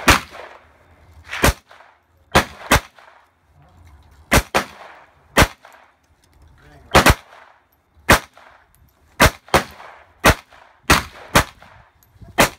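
Semi-automatic pistol fired repeatedly, some sixteen shots at an unhurried, uneven pace, sometimes two in quick succession, each a sharp crack with a short echoing tail.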